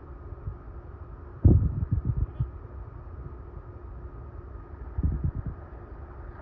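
Wind buffeting the microphone in low rumbling gusts, loudest about a second and a half in and again around five seconds, over a faint steady hum.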